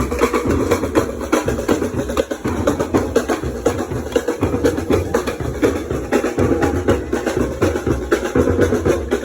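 Carnival percussion band playing a fast, dense drum rhythm.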